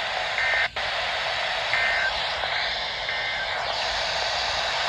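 Emergency Alert System end-of-message data bursts on a radio receiver: three short, buzzy two-tone digital bursts, a little over a second apart. They sound through the heavy hiss of a weak signal and mark the end of a broadcast severe thunderstorm warning.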